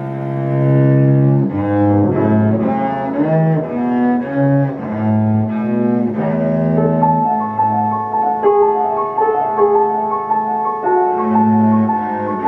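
Cello sonata played on cello and piano: the cello bows long, sustained low notes while the piano accompanies, its higher notes coming to the fore about halfway through.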